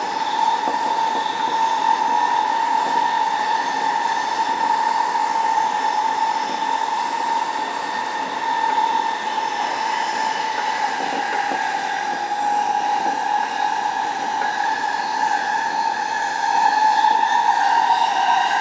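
Toyo Rapid Railway 2000 series electric train running at speed, heard from the driver's cab: steady running noise with a high whine held on one pitch throughout.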